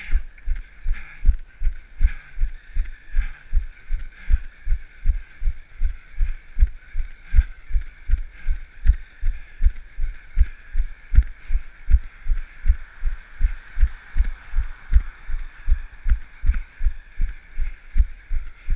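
A runner's footfalls on pavement: short low thumps at an even stride, about three a second, with a steady hiss behind them.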